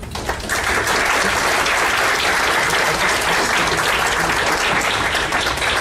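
Audience applauding, a roomful of people clapping that breaks out all at once and holds steady.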